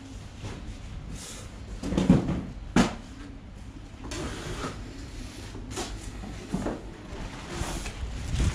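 Irregular knocks and thuds, the loudest a heavier thud about two seconds in followed by a sharp knock less than a second later, with fainter knocks scattered through, over a low steady rumble.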